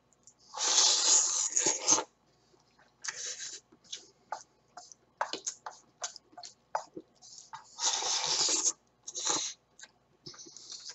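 A person eating ramen noodles with chopsticks: two long, loud slurps, about a second in and again near eight seconds, with chewing and short mouth smacks between them.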